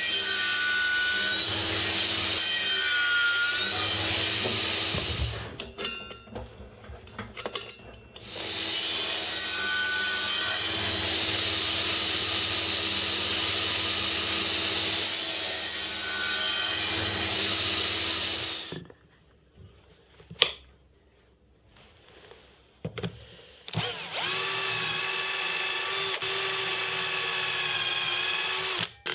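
A table saw runs and cuts through laminated birch plywood in two long spells, the first about five seconds, the second about ten. A single sharp knock sounds in the quiet that follows. Then a cordless drill runs steadily for about five seconds with a whine, driving screws through a steel door hinge into the plywood.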